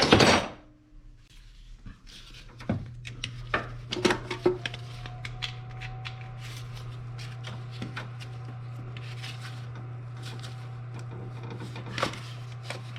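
Hose pliers working a power steering hose and its clamp loose: a loud clatter at the start, then scattered clicks, scrapes and rubbing of metal and rubber as the hose is twisted, over a steady low hum.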